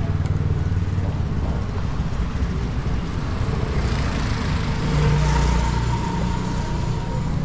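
Road traffic: a motor vehicle's engine running close by, loudest about five seconds in.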